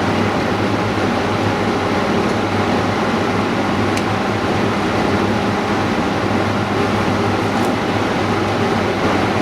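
Steady hum and hiss of running machinery, with a couple of faint clicks, one near the middle and one later.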